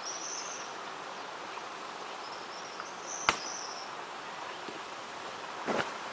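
Insects calling in short high-pitched trills over a steady outdoor hiss, with one sharp click a little past three seconds and a short rustle near the end.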